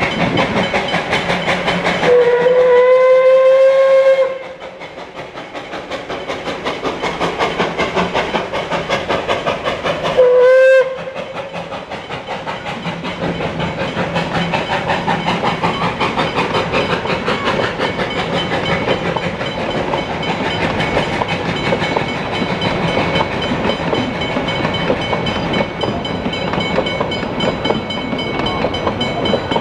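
Narrow-gauge steam locomotive sounding its steam whistle, one long blast about two seconds in and a short blast near ten seconds, over a level crossing bell ringing steadily. The train then rolls through the crossing, its carriages clattering past.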